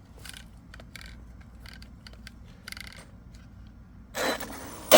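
Electric RC car on a 4S LiPo blipped with the throttle in short bursts, its motor and drivetrain spinning up and stopping. Three brief blips come first, then two much louder, longer bursts near the end.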